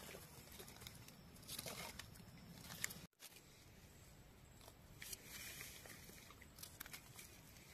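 Near silence, with faint rustling and a few soft clicks scattered through it.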